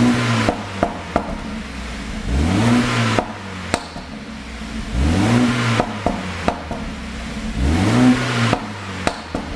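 BMW 428i's turbocharged four-cylinder engine revved from idle four times, about every two and a half seconds. Each time the revs fall back there are sharp exhaust pops and crackles, the overrun pops of a pop-sound ECU tune.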